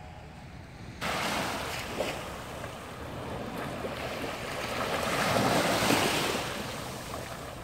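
Sea waves washing onto a beach, with wind buffeting the microphone. The sound starts abruptly about a second in and swells louder toward the end as a wave comes in.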